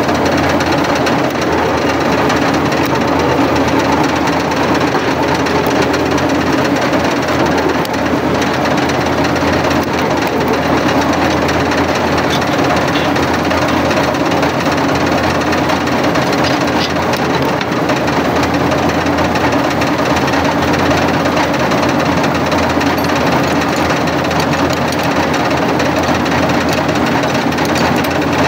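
Borewell drilling rig running steadily and loudly.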